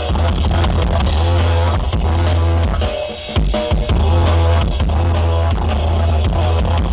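Live didgeridoo-and-drum band playing loud, driving music: a deep steady didgeridoo drone over a drum kit and percussion. The low drone drops out for about half a second around three seconds in, then comes back in.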